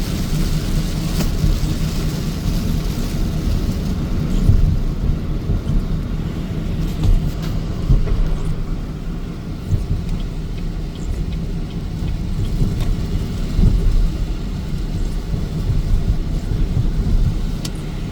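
Car driving, heard from inside the cabin: a steady low road-and-engine rumble that swells and dips, with a few faint scattered ticks.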